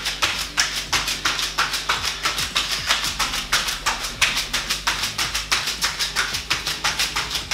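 Background music with a fast, even beat of crisp percussion hits.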